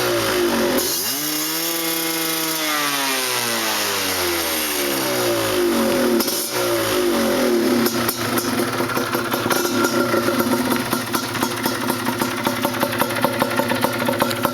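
Yamaha DT 125 two-stroke single-cylinder engine revved once: the pitch climbs sharply about a second in, then sinks slowly back to idle. It then idles steadily with an even pulse.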